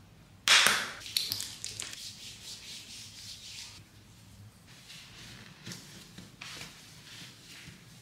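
Hand lotion squirted from a squeeze tube into a palm, a short loud squirt about half a second in, followed by palms rubbing the lotion together in repeated strokes.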